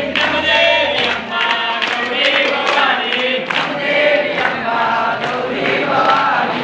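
A large group of seated pilgrims, men and women, chanting together in unison, a devotional chant sung by the whole crowd before the meal is served.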